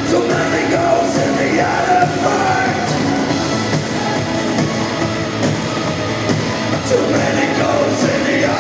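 A rock band playing loud and live, electric guitar over drums and cymbals, with a singing voice over the band near the start and again near the end.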